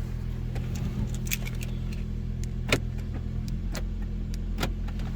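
2011 Nissan Altima engine idling steadily, just started with a newly programmed proximity key. Several sharp clicks and light knocks sound over it, the loudest a little past halfway, with some key jingling.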